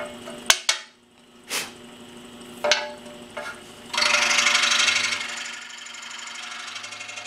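A few sharp knocks and clicks as a workpiece is handled on a metal saw table, then about four seconds in a scroll saw cuts into an aluminum shaft: a dense, fast rattling chatter, loudest for about a second, then settling to a steadier, quieter fast chatter.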